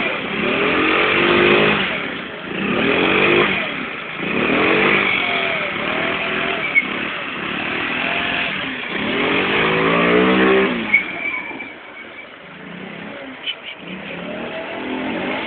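Small scooter engine with a sport exhaust, revved hard in repeated surges, its pitch climbing and dropping back about every two seconds while the rear wheel spins in dirt for a burnout.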